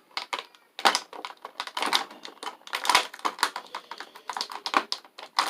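Packaging handled and opened to free a miniature: dense, irregular clicking and crackling.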